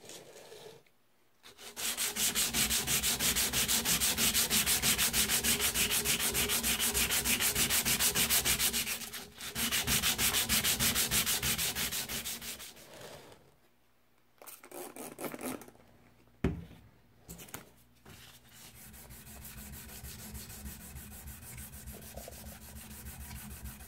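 Sandpaper rubbed by hand over a steel hatchet head in fast back-and-forth strokes, smoothing the rough finish left by a 40-grit flap disc. The sanding is loud for about ten seconds, stops for a few seconds with only a few short strokes and one sharp knock, then goes on more softly near the end.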